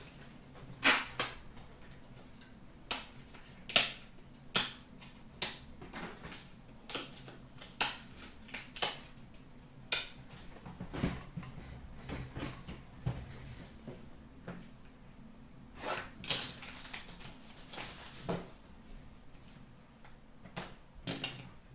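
Hands handling trading cards and their cardboard and plastic packaging: scattered sharp clicks and taps at irregular intervals, with a couple of seconds of rustling about sixteen seconds in.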